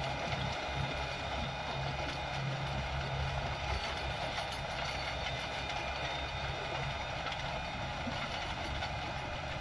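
Kubota M108S tractor's four-cylinder turbo diesel engine running steadily under load as it pulls a Türkay rotary power harrow through ploughed soil, the harrow's tines churning the ground. It grows a little fainter as the tractor moves away.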